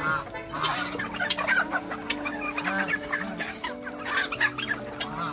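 Flock of country chickens clucking in many short calls, over background music of long held notes.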